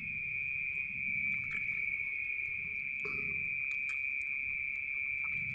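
Steady, unbroken high-pitched drone of insects calling, with scattered faint clicks and rustles.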